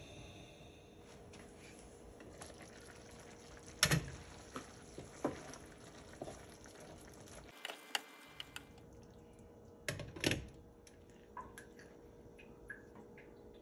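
Stir-fry sauce bubbling at a simmer in a covered skillet. Sharp clinks and knocks of the pan's glass lid and a wooden spatula stand out over it, loudest about four seconds in and again about ten seconds in.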